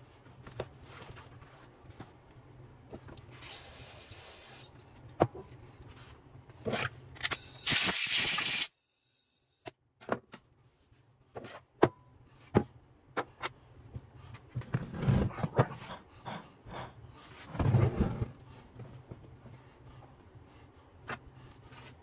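Scattered knocks and clinks of metal parts and hand tools being handled during transfer case reassembly, with two short rushes of hissing noise, the second loud, about four and seven seconds in, and a brief drop-out of all sound around nine seconds.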